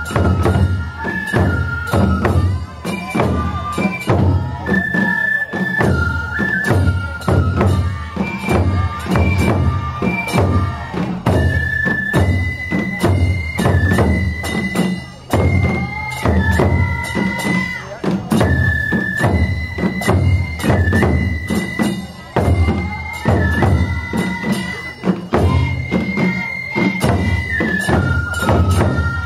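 Japanese festival music: bamboo transverse flutes (shinobue) play a high stepping melody over a steady beat of taiko drums. The drums drop out briefly twice.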